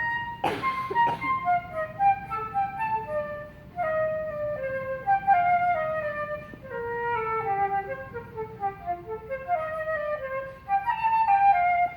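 Solo concert flute playing a melody in short phrases, with falling runs of notes in the middle. A brief noise sounds about half a second in.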